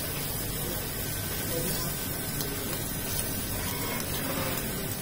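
Spiny lobster sizzling on a hot grill grate: a steady hiss.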